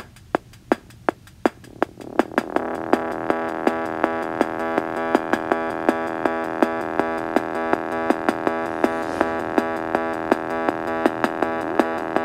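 Electronic synthesizer music. A steady clicking beat plays alone at first, and about two seconds in a sustained synth chord comes in under it.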